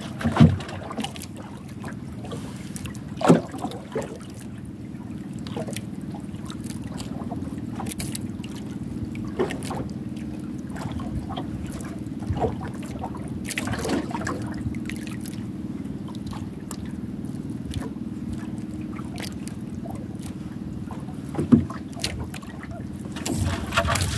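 Steady wash of sea water and wind around a small outrigger boat drifting at sea, with half a dozen short sharp knocks and clicks scattered through it.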